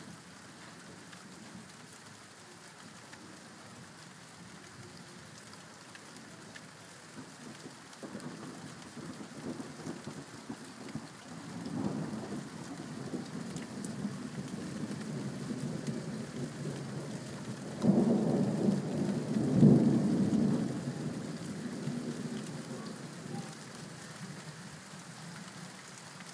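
Rain falling steadily while a long roll of thunder builds from about eight seconds in. The thunder is loudest about two-thirds of the way through and rumbles away toward the end.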